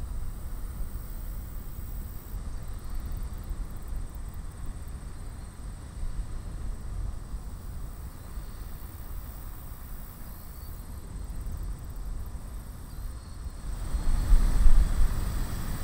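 Steady low outdoor rumble with a faint steady high whine above it, swelling louder for a moment near the end.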